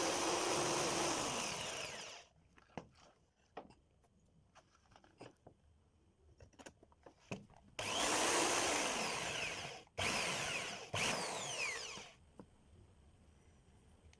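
A power tool running, winding down about two seconds in, followed by light clicks and knocks, then run up again for about two seconds and once more briefly a second later.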